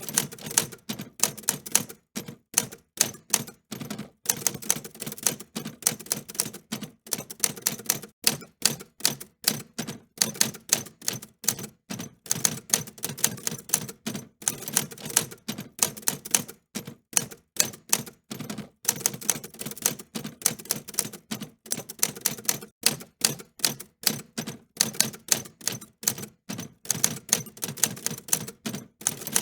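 Typewriter keys being struck in quick irregular runs of sharp clicks, with short pauses between bursts of typing.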